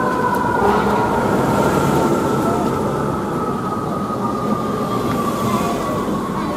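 Fire engine's siren holding two steady tones that sink slowly in pitch as it winds down, over the low rumble of the truck's engine.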